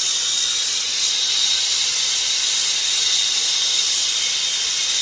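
Acetylene torch flame burning with a steady hiss while heating a joint, with a faint thin high whistle held under the hiss.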